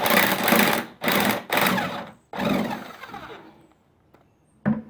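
Impact wrench rattling in four short bursts, backing out the half-inch bolts that hold a lawnmower engine to its deck; the last burst fades out. A short knock near the end.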